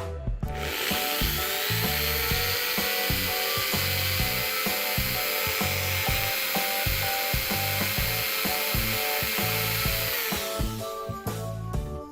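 A small power tool spins up, runs steadily while cutting or grinding for about ten seconds, then winds down, over background music.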